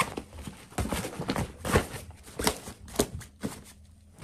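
A fabric backpack being handled: irregular knocks and rustles from its straps and fabric, a few strokes a second, dying away near the end.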